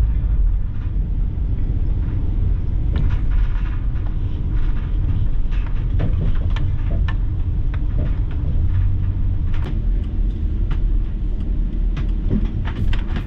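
Steady low rumble of road and engine noise inside the cabin of a van being driven, with scattered light clicks and rattles.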